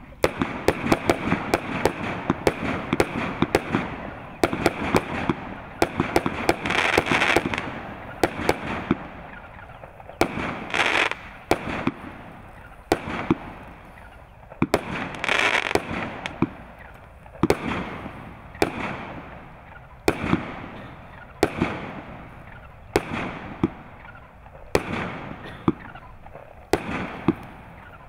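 A 49-shot, 25 mm consumer fireworks cake firing: a long run of shots launching and bursting, each crack followed by a short echo. The shots come thick and fast at first, with a few hissing swells in between, then settle to about one every second and a half.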